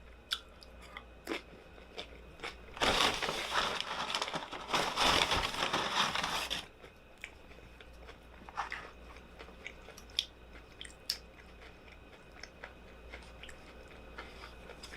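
Close-up chewing and eating sounds from a burrito bowl, with scattered small clicks, and a loud noisy rustle lasting about four seconds starting about three seconds in.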